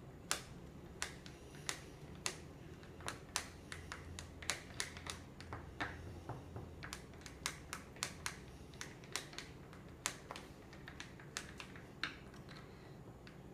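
Thin wooden stick clicking and tapping against the sides of a small plastic cup while stirring a wet clay, water and soap mix for slime. The clicks are irregular, about two a second.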